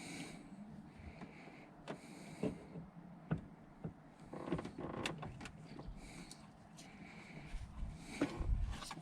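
Scattered light clicks, knocks and scraping as a steering wheel hub is handled and worked onto the steering column to line it up.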